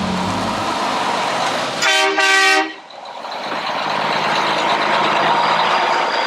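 A vehicle horn sounds two short toots about two seconds in, the second a little longer, over a steady rushing noise.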